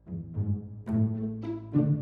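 Music: a run of about five struck, pitched notes over a steady low drone.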